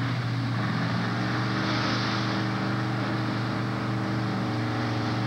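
Drag race cars' engines running at a steady idle, a low even drone with a few pitches shifting, over a hiss that swells about two seconds in.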